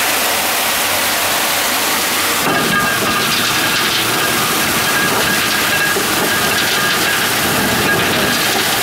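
Water and gravel pouring from a gold trommel's rotating perforated drum and rushing down a sluice box, making a steady splashing noise. About two and a half seconds in, a faint steady high whine from the machinery joins it.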